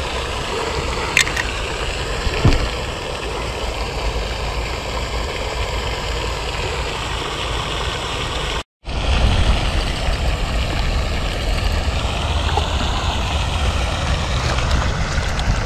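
Steady rushing outdoor noise with a low rumble, typical of wind on the microphone by open water, with a light click and a small knock in the first few seconds. The sound cuts out completely for a moment about nine seconds in.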